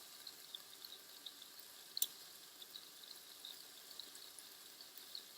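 Faint crackling and sizzling of thin-cut beef frying in a pan, with scattered small pops and one sharper click about two seconds in.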